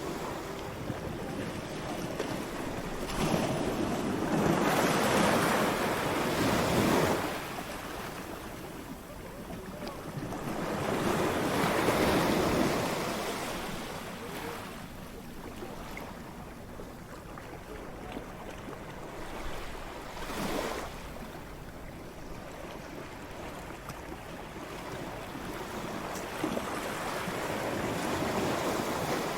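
Ocean waves breaking and washing on a shore, a steady rush of surf that swells into four loud surges several seconds apart.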